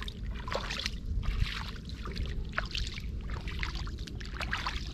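Water splashing and sloshing in shallow floodwater: many small irregular splashes over a steady low rumble.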